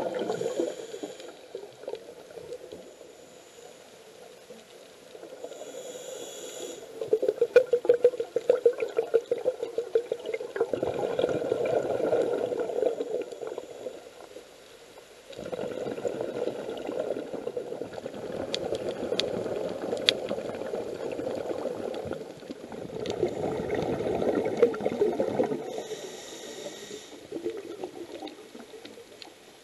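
Scuba diver breathing through a regulator underwater: short hissing inhalations followed by long bubbling exhalations, repeated several times.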